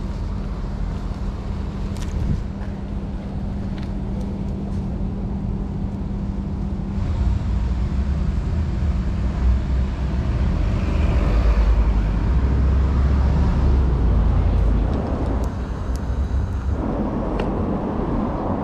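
Kawasaki ZX-10R's inline-four engine idling steadily through an Akrapovic exhaust, a low even rumble. It grows louder and deeper for several seconds from about seven seconds in.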